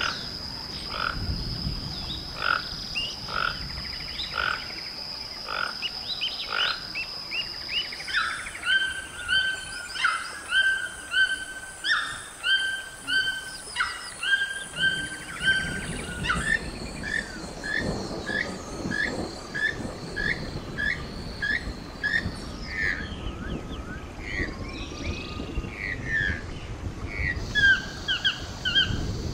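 Recorded calls of wild toucans, one species after another: series of short yelping notes repeated about once or twice a second. These include a red-billed toucan's yelps, and near the end a Swainson's toucan's, over a steady high whine.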